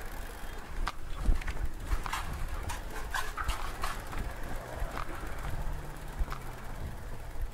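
An old bicycle being handled and wheeled along, giving irregular rattling clicks and knocks.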